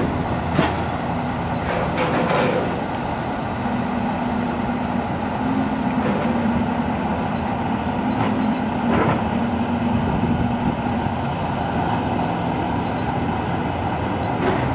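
Steady rumble of a heavy truck running nearby, with a hum that rises in the middle and a couple of light knocks.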